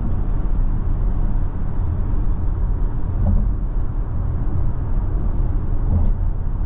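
Steady road and wind noise inside the cabin of a Geely Galaxy L7 cruising at about 100 km/h, mostly deep and low-pitched, even in level throughout.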